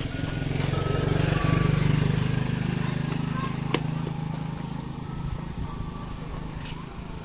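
A motor vehicle's engine passing close by, growing louder then fading away.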